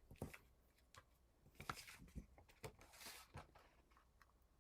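Near silence with a few faint, short taps and clicks: circle paper punches being handled and set down on the work table.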